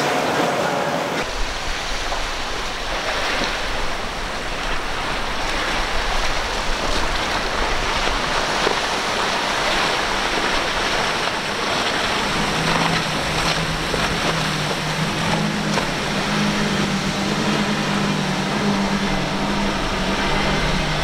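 Boats running at speed: steady rushing of hull spray and water with wind on the microphone. About halfway through, a steady outboard engine drone joins, from the triple Mercury 400 hp outboards on the passing center console.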